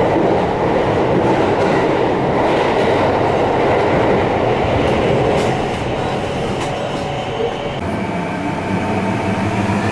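Kintetsu electric train running, heard from inside the carriage: a steady rumble of wheels and running gear, with a few faint clicks from the rails. It eases off slightly a little past the middle.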